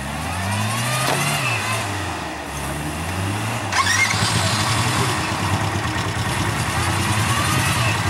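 Lifted pickup truck's engine revving hard as it churns through deep mud, the revs rising and falling at first, then held high and louder from about four seconds in.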